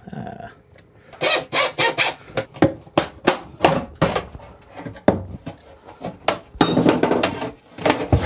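A hammer striking wooden boat interior joinery in a run of quick, uneven blows, about two to three a second, during interior demolition.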